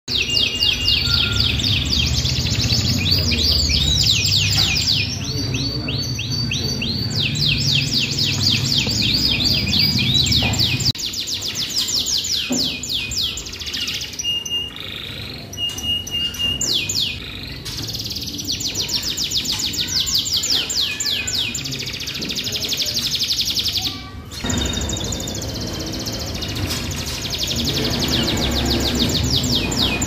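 Caged canaries singing, long fast trills of rapidly repeated high notes, several birds overlapping, over a steady low rumble.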